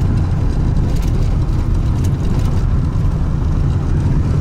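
Truck cab interior while driving: a steady low rumble of engine and road noise, with light clicks and rattles over it.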